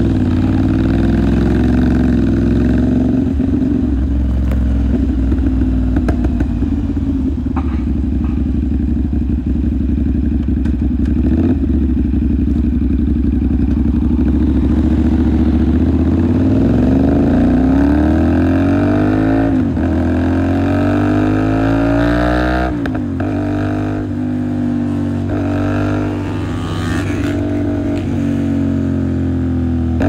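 CFMOTO 450SR's parallel-twin engine running at a steady cruise, then accelerating through the gears: the pitch climbs, drops sharply at each upshift (three in the second half), and climbs again.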